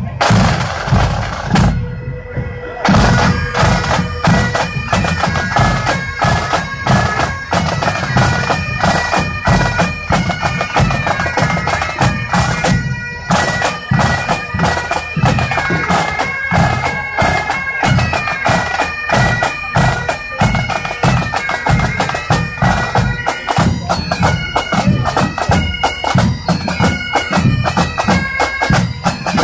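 Pipe band playing: snare drums beating, then Highland bagpipes striking in about two seconds in with their steady drone. From then on the chanters play a tune over the continuous drumming.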